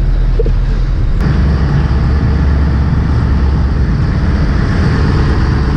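Steady low rumble of a fishing boat's engine, with a rushing hiss of wind and water that grows louder about a second in.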